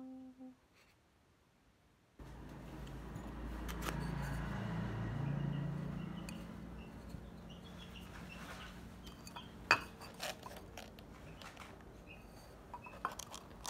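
Terracotta flowerpots clinking and knocking against each other as they are lifted and handled, with a few sharp clinks in the second half, over a low steady rumble that starts about two seconds in.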